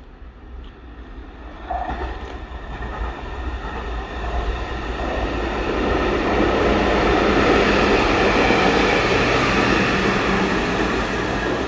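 Network Rail track maintenance machine DR 73113 approaching and passing close along the platform line. Its diesel engine and wheels on the rails grow steadily louder over the first six seconds, then hold a steady rumble as it goes by.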